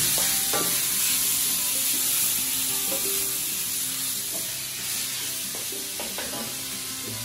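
Minced meat with chopped onion and leek sizzling in a steel wok over a gas flame, stirred and scraped around with a wooden spatula at irregular strokes.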